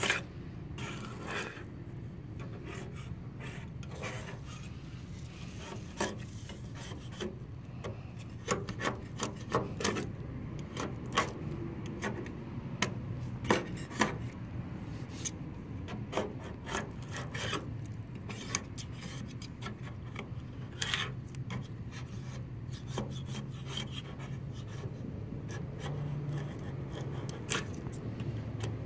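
Razor-blade scraper scraping paint off a car body panel in short, irregular strokes and clicks, the base coat peeling away easily in strips.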